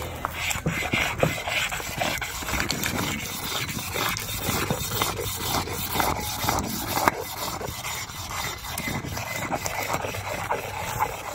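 A hard hand stone rubbed back and forth over concentrated mining sand on a flat grinding stone, a steady run of gritty scraping strokes. The sand is being ground down to a mud to free the very fine gold locked in it.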